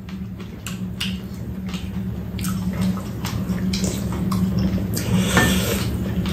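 Metal spoons clicking against ceramic soup bowls and soup being slurped from spoons: a string of small clicks with a louder slurp about five seconds in, over a steady low hum.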